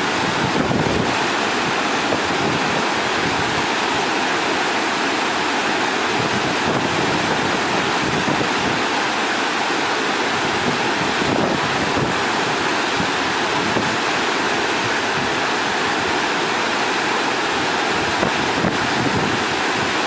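Steady rush of wind on the microphone mixed with water noise, unbroken throughout.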